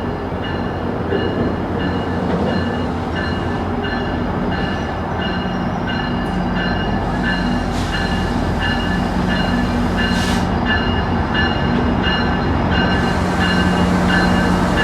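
GO Transit commuter train's bell ringing steadily, about two strikes a second, over the steady low hum of the diesel locomotive.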